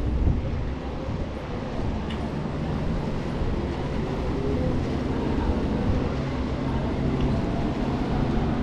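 Bicycle riding over brick paving: a steady low rumble from the tyres on the bricks and rattling of the bike, with city street noise around it.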